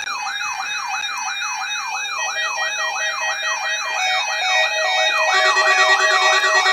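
Several NOAA weather alert radios sounding their alarms together for a Required Weekly Test. A siren-like tone sweeps up and down about three times a second over steady electronic beep tones. More alarms join about two seconds in and again about five seconds in, and the whole grows louder.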